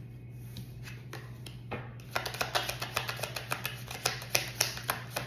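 A deck of oracle cards shuffled by hand: a few soft card clicks at first, then from about two seconds in a quick, dense run of card-on-card clicks, over a steady low hum.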